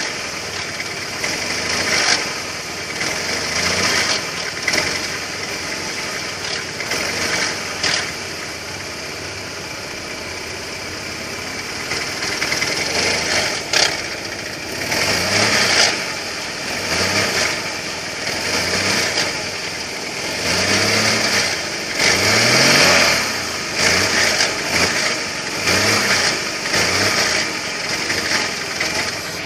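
BMW N42 four-cylinder petrol engine running cold with the rattle it makes when cold, idling at first and then revved in a series of short throttle blips over the second half.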